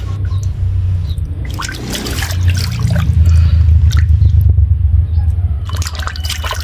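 Water splashing and sloshing in a steel basin as a large raw octopus is scrubbed and rinsed by hand, with a steady low rumble underneath.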